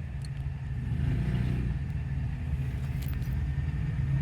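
Steady low rumble of a car engine idling, swelling slightly about a second in, with a couple of faint ticks.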